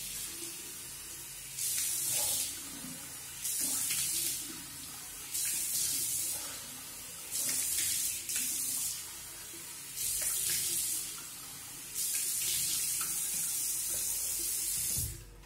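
A bathroom tap running into the sink while a man rinses his face after shaving. Louder splashes come about every two seconds as he scoops water onto his face, then the water stops near the end.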